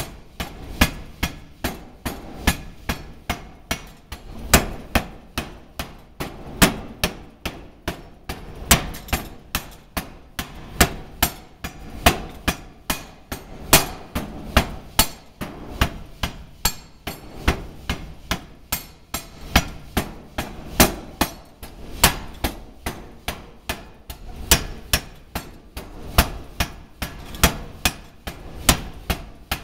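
5 cwt Massey power hammer striking a red-hot 4140 steel anchor-bolt shank as it is forged, a steady run of heavy blows about two a second.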